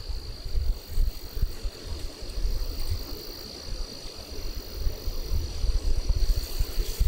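A steady, high, unbroken insect chorus, such as field crickets singing, over gusty wind rumbling on the microphone.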